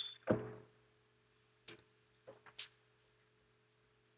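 A soft thump, then a few faint light clicks and taps about a second and a half to two and a half seconds in: small objects handled and set down, over a faint steady hum.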